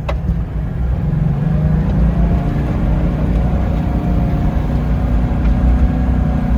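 Toyota Land Cruiser 76's V8 turbo-diesel engine working hard under load, pushing the four-wheel-drive through deep, sticky mud with the diff locks engaged. A steady low drone that grows louder about a second in.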